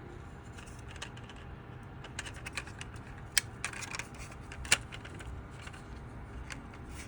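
Small clicks and snaps of 3D-printed plastic as the segments of a printed articulated cat are flexed and worked loose by hand, with two sharper snaps around the middle.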